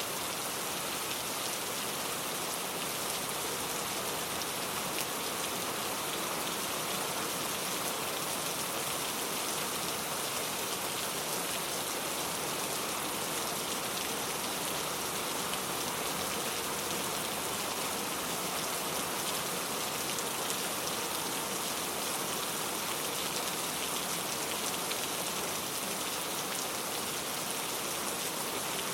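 Steady rain falling: an even, unbroken hiss of many drops, with no thunder or other events.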